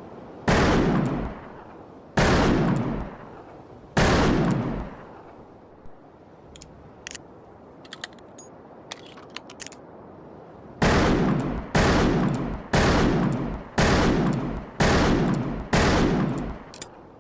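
Smith & Wesson revolver firing: three shots about two seconds apart, each ringing out briefly. After a pause with a few light clicks, six more shots follow at about one a second.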